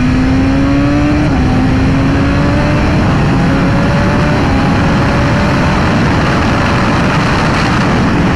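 BMW S1000RR inline-four sportbike engine under hard acceleration, its note slowly rising, dipping about a second in and then climbing again. Heavy wind roar on a helmet microphone at speed runs under it.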